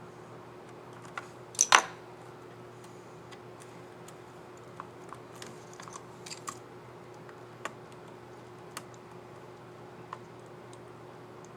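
Light plastic clicks from a laptop keycap and its scissor mechanism being handled on the keyboard, with one louder double click about a second and a half in and scattered small clicks after.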